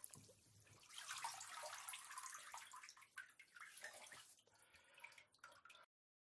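Faint water splashing and dripping as a man-drowning sound effect dies away. It cuts to total silence near the end.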